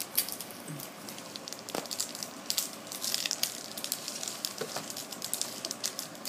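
Foil trading-card booster pack crinkling and crackling in the hands as it is picked up and pulled open, a continuous run of sharp little crackles.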